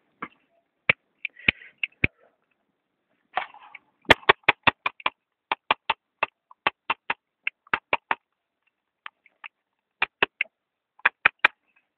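A knife blade chopping into a piece of dry wood: a series of short, sharp knocks, in quick runs of about four to five a second with short pauses between.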